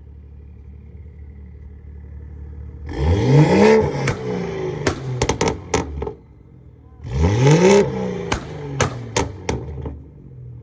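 Straight-six car engine idling, then revved twice in quick throttle blips about three and seven seconds in, the pitch shooting up and falling back each time. Each blip is followed by a string of sharp cracks as the revs drop.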